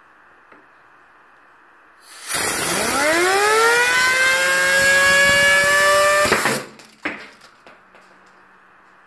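Compressed-air blow gun hissing loudly at a 3D-printed fidget spinner held in a vise, the spinner whining as it spins up, its pitch rising fast and then levelling off at speed. The air cuts off suddenly after about four seconds, followed by a sharp knock and a few smaller clattering knocks.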